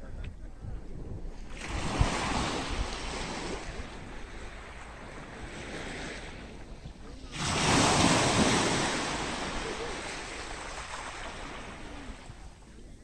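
Sea waves breaking on a beach and washing up the shore: one wave comes in a second or two in, and a bigger one breaks about seven seconds in and slowly fades as it runs out. Wind rumbles across the microphone underneath.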